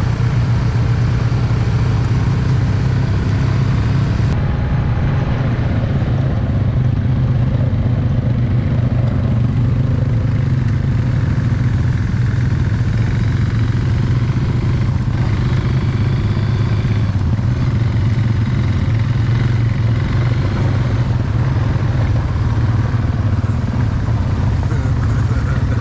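Off-road vehicle engine running steadily at a low, even pitch while riding a trail.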